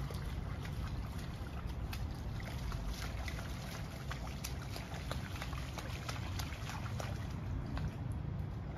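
Irregular small splashes of a toddler wading and playing in a shallow puddle of standing water on a lawn, over a steady low rumble.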